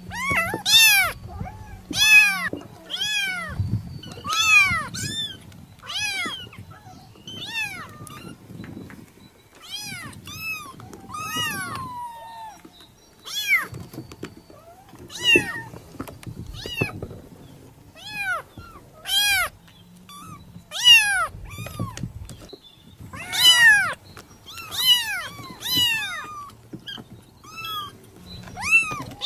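Kitten meowing over and over: high-pitched calls that rise and fall in pitch, about one a second, with a few short pauses between runs.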